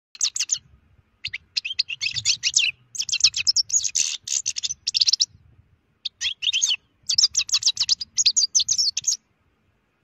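A finch singing: fast twittering phrases of high chirps and trills, broken by short pauses, stopping a little after nine seconds in.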